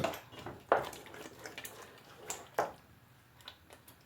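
Tomato-and-stock sauce in a cooking pot being stirred: wet plops and small clicks, with two louder plops, about a second in and again a little past halfway.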